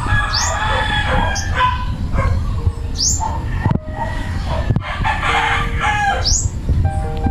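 A rooster crowing twice, each crow lasting about a second and a half.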